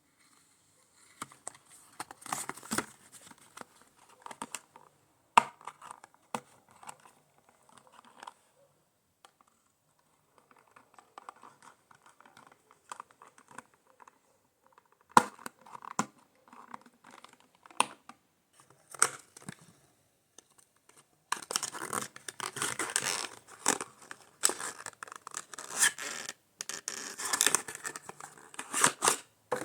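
Toy packaging being torn open and handled: tearing, scratching and crinkling of cardboard and plastic with sharp clicks, busiest and loudest near the end.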